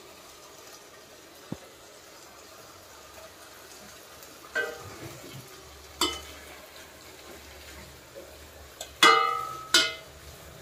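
A spatula stirring mutton pieces in a stainless steel pot, knocking against the pot in a few ringing clinks, the loudest two close together near the end. Beneath it runs a faint steady hiss of frying.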